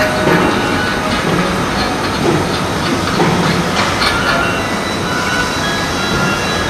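Loud steady rumbling background noise, with a few light clicks and knocks of a clamp being fitted to a metal lighting truss.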